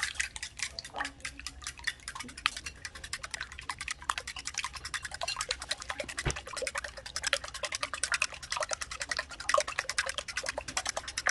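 Eggs and seasonings being beaten in a ceramic bowl with a metal utensil: rapid, steady clicking of the utensil against the bowl with the liquid egg mixture sloshing.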